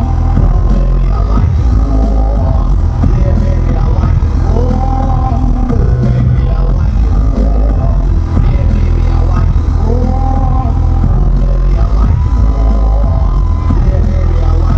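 Loud live electronic bass music played through a concert sound system, with heavy, steady sub-bass and a wobbling synth phrase that repeats about every five seconds.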